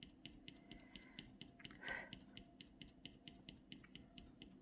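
Faint, quick little scratches of a scratching tool on a clay-coated Ampersand scratchboard, several short strokes a second, with a soft hiss about two seconds in.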